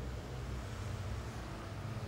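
Steady low background rumble with a faint hiss, without any distinct event.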